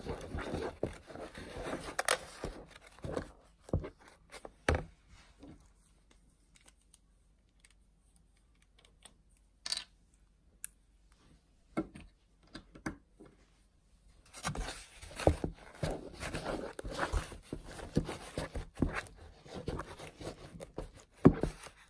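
A metal spoon stirring fluffy slime in a bowl, making sticky clicking and scraping sounds. It comes in two spells, with a quiet pause of several seconds in the middle.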